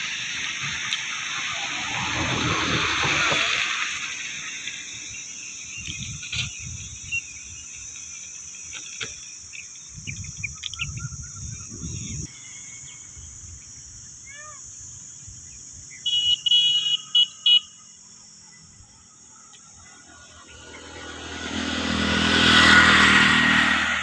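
Open-air rural ambience with road vehicles passing: a swell of traffic noise builds and fades a couple of seconds in, and a louder one peaks near the end. Scattered bird chirps and a quick run of high pulsed chirps come in between.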